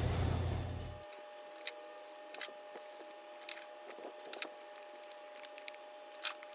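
Faint handling of a nylon range bag: scattered small clicks, taps and rustles as its compartments and pockets are worked, over a faint steady hum.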